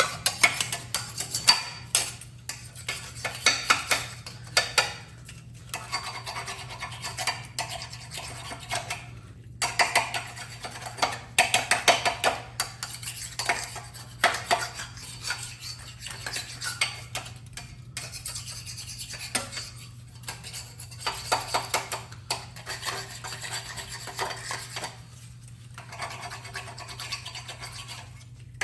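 Hand scraper scraping dried paint off a Graco airless paint sprayer, in irregular runs of short rasping strokes and clicks with brief pauses, over a faint steady hum.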